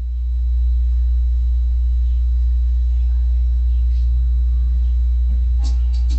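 A subwoofer playing a steady, very deep bass tone that swells up at first and then holds. Near the end the music's beat comes back in with high percussion hits.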